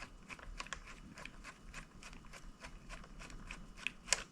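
Phillips screwdriver backing a screw out of a motorcycle handlebar's bar end weight: a run of light, irregular metal ticks and clicks, a few a second, with one sharper click about four seconds in.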